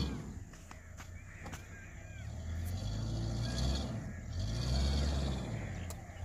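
Low rumble of a Suzuki Jimny's 1.3-litre four-cylinder engine as it crawls across soft sand, swelling and easing off, with a few short bird calls in the first couple of seconds and some scattered clicks.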